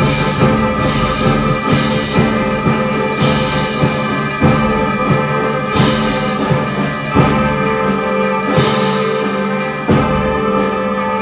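Concert band playing live: held brass and woodwind chords over a steady percussion pulse, with a stronger accent about every one and a half seconds.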